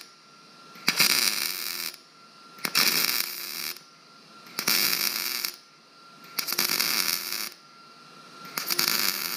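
Wire-feed welder arc crackling in five short runs of about a second each, with about a second's pause between, as steel supports are stitch-welded onto a seat frame.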